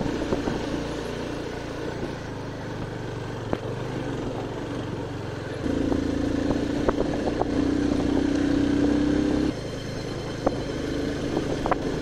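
Motorcycle engine running while riding over a rough, bumpy dirt road, with scattered knocks and rattles from the uneven surface. About six seconds in, the engine gets louder and steadier, then drops back about three and a half seconds later.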